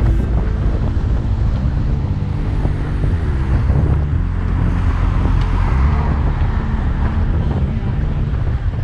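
Wind buffeting the microphone of a camera riding along on a moving bicycle: a steady low rumble with no break.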